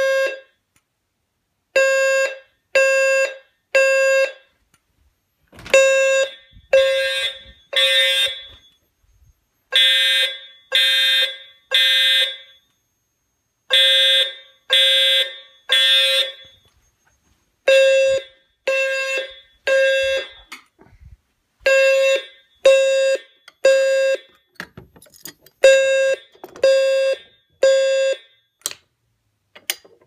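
Fire alarm horns sounding the temporal-three evacuation pattern: three one-second blasts, a pause, then three more, repeated seven times. The loudest tone is the Edwards G4LF's low 520 Hz horn, and a second, higher-pitched horn joins in on some groups. Near the end the horns stop and a few clicks follow.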